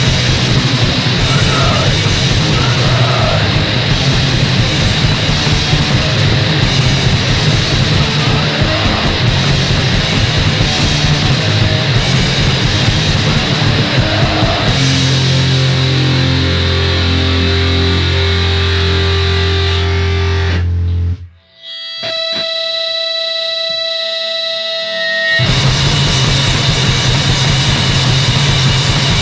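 Punk band recording: fast, distorted guitar and drums, then a held ringing chord that ends the song about three-quarters of the way through. After a short gap, a few seconds of lone guitar tones open the next song, and the full band comes back in near the end.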